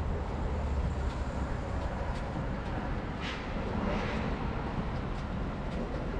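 City street traffic heard from a moving bicycle: a steady low rumble, with a vehicle swishing past about three seconds in and another a second later.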